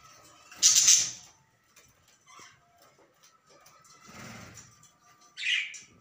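Female budgie in a nest box giving two short, harsh, hissing squawks, a loud one about half a second in and a second near the end.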